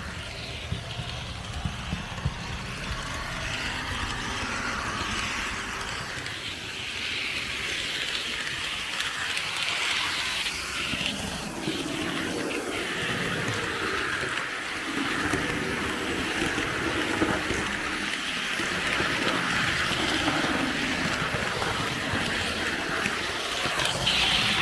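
Märklin H0 model train running on the layout: a steady whir and rattle of motor and wheels on the track, with a few sharp clicks in the first couple of seconds.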